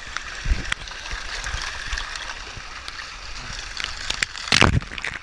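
Churning water sloshing and splashing at the surface of a fast-flowing water park river, heard through a GoPro's waterproof housing at the waterline. Scattered splashes break through the steady rush, the loudest about four and a half seconds in.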